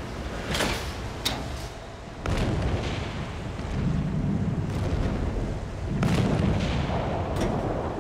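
Heavy naval guns firing: several sudden reports and booms over a continuous low rumble, the loudest onsets about two seconds in and again about six seconds in.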